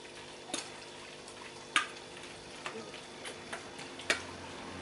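Metal spoon clinking and scraping against a stainless steel bowl while mixing catfish pieces in a wet seasoning paste, with several sharp clinks, the loudest about two seconds in and near the end.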